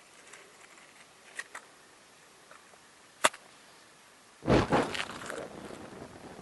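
A single sharp click, then about a second later a sudden loud whoosh of flames igniting around a plastic model truck, with two quick surges that sink into a lower rushing burn.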